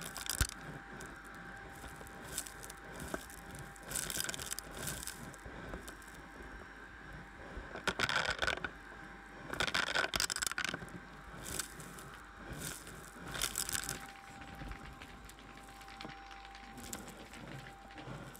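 Vacuum cleaner running with a crevice tool on carpet, a steady motor whine under repeated bursts of crackling and rattling as fluff and small debris are sucked up the wand. The loudest bursts come about 8 and 10 seconds in.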